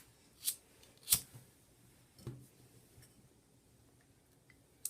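A few short, sharp clicks and taps of small objects being handled, the loudest about a second in.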